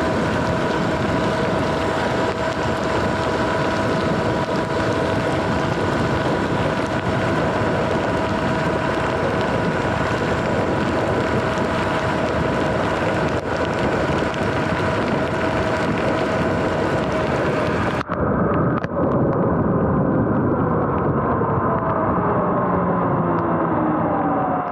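Sur-Ron electric dirt bike riding on a wet road: wind and tyre noise with a steady whine from the motor and tyres at cruising speed. About 18 seconds in the sound suddenly turns duller, and the whine falls in pitch as the bike slows.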